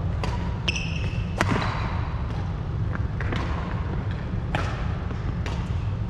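Badminton rally: several sharp clicks of rackets striking the shuttlecock, the loudest about a second and a half in, with a brief shoe squeak on the wooden court floor just under a second in, over a steady low rumble.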